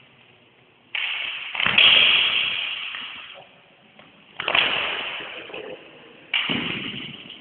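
Practice sword blades clashing, four loud strikes that each ring on and fade slowly in an echoing hall.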